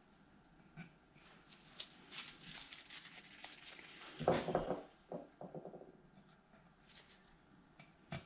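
Light handling sounds of work on a taped chrome hubcap: small taps, scrapes and tape rustling, with a louder knock and rattle about four seconds in as a tool is picked up from the bench. Near the end a craft knife scores the masking tape.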